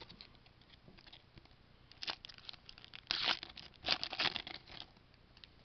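A foil trading-card pack wrapper being torn open and crinkled, in a run of crackling bursts that starts about two seconds in, peaks twice and stops about a second before the end.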